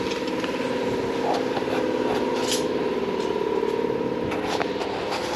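A motor or engine running steadily with an even hum, with a few faint light clicks over it.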